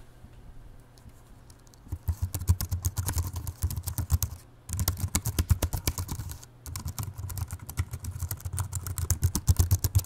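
Typing on a Cherry KC 4000 ultra-slim keyboard with low-profile SX keys, recorded close up: a fast run of light key clicks starting about two seconds in, broken by two short pauses.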